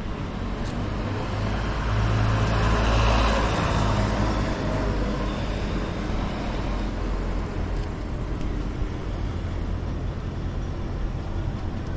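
A motor vehicle drives past on the street: its low engine hum and tyre noise swell to a peak about three seconds in, then fade into steady traffic noise.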